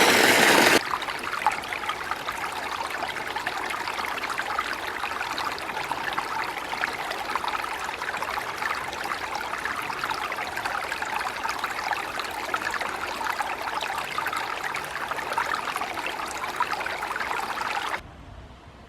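Mountain stream running with a steady trickling and splashing. A louder noise cuts off about a second in, and the water sound stops abruptly near the end.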